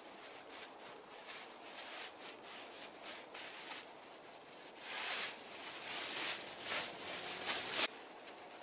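Clear plastic sheeting rustling as it is unfolded and spread out by hand, in a run of short rustles that grow louder in the second half and cut off sharply about a second before the end.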